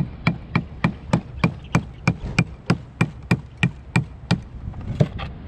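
Rapid, even hammer blows on a fresh conch shell against a concrete wall, about three a second, each a sharp knock with a short high ring. The blows knock a hole in the shell so the conch can be cut loose and cleaned. They pause briefly near the end, then resume.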